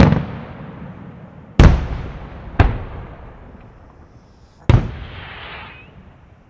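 Aerial fireworks bursting: a loud bang trailing off at the start, then three more sharp bangs, each dying away in echo, the last followed by a short hissing crackle.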